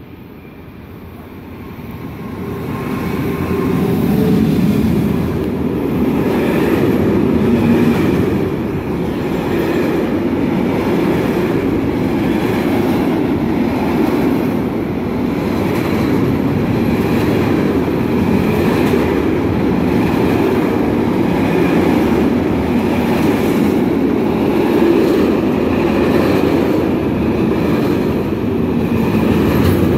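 Freight train hauled by two ÖBB electric locomotives, a class 1216 and a class 1144, running through a station. It builds up over the first few seconds as the locomotives come near and pass, then holds as a steady rumble with a regular wheel clatter from the covered freight wagons rolling by.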